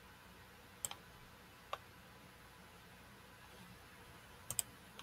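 Faint computer mouse clicks over quiet room tone: single clicks about one second and nearly two seconds in, then a quick double click near the end.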